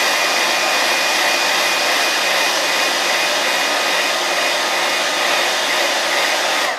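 Hand-held hair dryer blowing steadily at close range, warming a freshly polish-coated resin statue piece.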